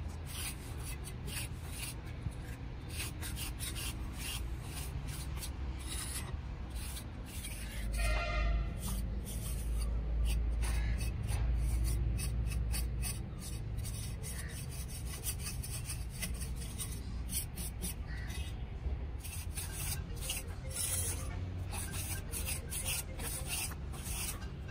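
Steel trowel scraping and rubbing over wet cement on the inside walls of a cast cement planter, in many short repeated strokes. A low rumble swells for a few seconds about eight seconds in.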